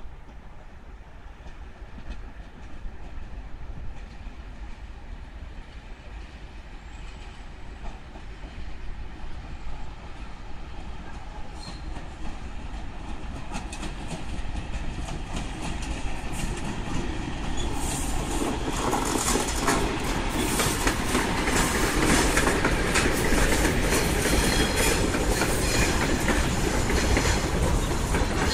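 2TE116U twin-section diesel locomotive hauling a freight train, its diesel engine noise growing steadily louder as it approaches and passes. From about two-thirds of the way in, the freight wagons roll past with a dense clatter of wheels over the rail joints.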